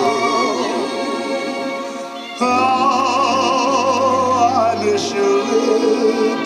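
Music from an old cassette tape played on a Sharp RT 442H cassette deck and heard through hi-fi loudspeakers in the room: a singer with a wide vibrato over instrumental accompaniment. A louder phrase with a low bass line comes in about two and a half seconds in.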